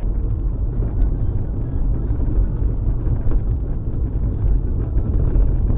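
Steady low rumble of road and engine noise inside a car's cabin while driving on a snow-covered highway.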